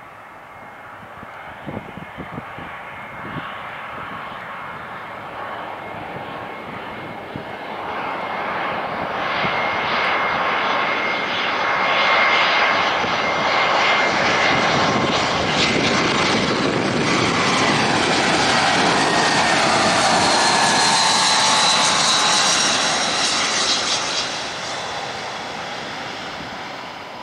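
Airbus A320 airliner's jet engines on final approach and landing: a rumble and whine that grows louder as the jet comes in, then fades, with the engine tones sliding down in pitch as it passes.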